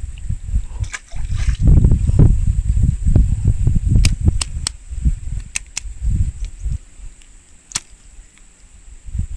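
A small fish tossed back into a stream splashes about a second in, over loud, uneven low rumbling on the microphone. A steady high whine runs underneath, and several sharp clicks come in the second half.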